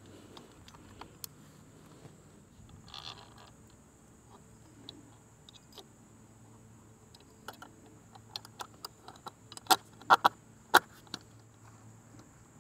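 Small metal clicks and taps of bolts, nuts and steel fender brackets being handled and fitted by hand to an e-bike's front fork, with a brief rustle about three seconds in. The clicks come closer together in the second half and are loudest near the end.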